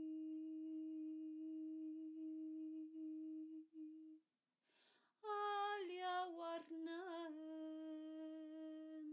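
A woman humming long held notes in light-language toning. A steady low hum runs for about four seconds and stops, followed by a short breath. Then a higher note wavers and slides down before settling into another steady hum.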